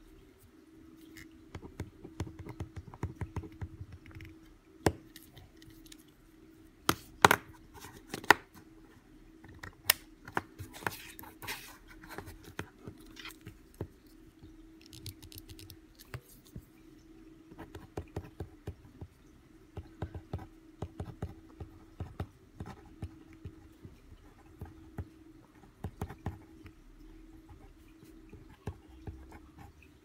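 Mechanical pencil writing on paper: the lead scratching in short strokes and taps, with several sharp clicks a quarter of the way in and a brief paper rustle.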